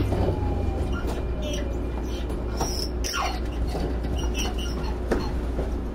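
Interior running sound of a Sanyo 5030 series train with a Fuji Electric IGBT VVVF inverter: a steady low rumble and hum, a faint inverter tone falling in pitch over the first second or two, and short high squeaks scattered through.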